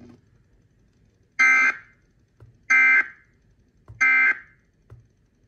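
Emergency Alert System end-of-message tones: three short, identical buzzing bursts of digital SAME data about 1.3 seconds apart, the signal that marks the end of the severe thunderstorm warning broadcast.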